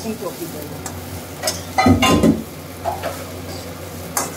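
A metal spatula stirring and scraping rice around an aluminium kadai, with a faint sizzle as the rice fries in oil and spice paste. The strokes come irregularly, the heaviest knock against the pan about two seconds in.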